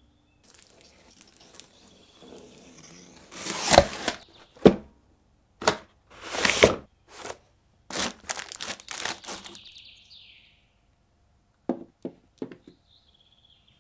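Cardboard packaging being opened by hand: tearing, scraping and rustling in a string of short, sharp strokes, followed near the end by a few light knocks of hard plastic toy parts set down on a table.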